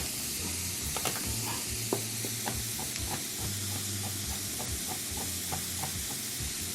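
Onion and garlic sizzling in hot vegetable oil, a steady hiss, with a knife knocking on a cutting board about two or three times a second as candlenuts are crushed and chopped.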